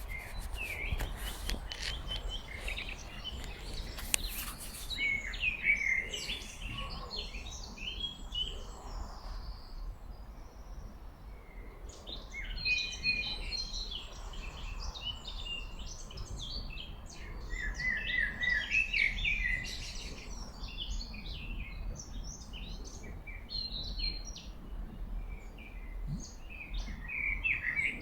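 Several small songbirds singing and chirping in quick, warbling phrases that come in bursts with short lulls, over the low, steady rush of a mountain stream.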